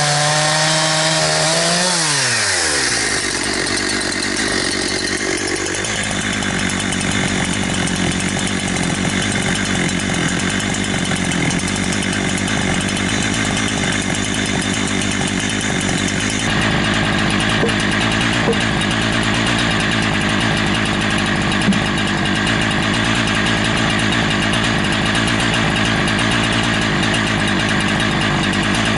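Holzfforma G372 XP two-stroke chainsaw running at high revs with a wavering note, as when cutting wood. About two seconds in, the revs drop sharply and it then runs steadily at a low speed.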